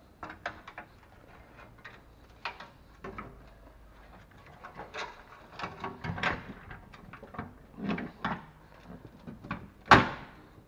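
Nissan Murano's plastic underbody shield being slid and pushed into place by hand: irregular scraping and knocking, with one sharp, loud knock about ten seconds in.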